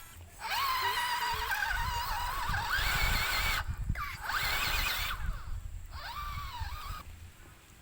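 Small electric motor of an off-road RC toy car whining, its pitch rising and falling with the throttle. It is driven in spurts, with short breaks a little before halfway and again near six seconds.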